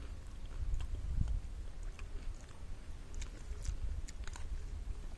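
Close-up chewing of a mouthful of spicy instant noodles, with scattered small mouth clicks and smacks over a low background rumble.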